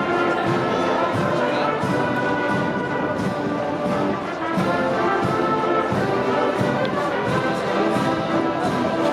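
Brass band playing a processional march, with held brass chords over steady drum strokes.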